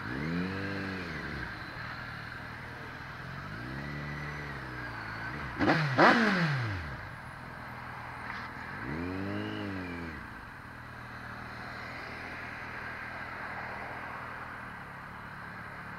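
Motorcycle engine in slow traffic, its throttle blipped repeatedly: each rev rises and falls in pitch, three times, with a louder, harsher burst about six seconds in.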